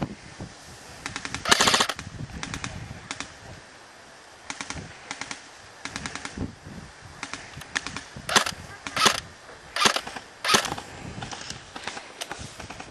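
Airsoft rifle firing short bursts on full auto, each a quick rattle of clicks, repeated again and again. The loudest bursts come about a second and a half in and in a run of four near the end.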